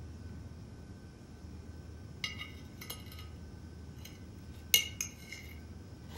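Cutlery clinking against a plate and glass during a meal: four or five short, sharp clinks, the loudest a pair about three-quarters of the way through.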